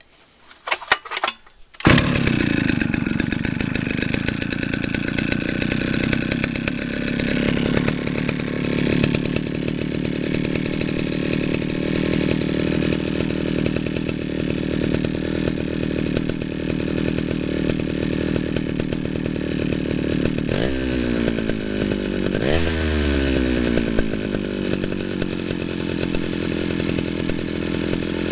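Stihl 051 AV two-stroke chainsaw, bar and chain removed, pull-started: a few sputters, then it catches about two seconds in and runs steadily. About three quarters of the way through it is briefly revved twice and settles back.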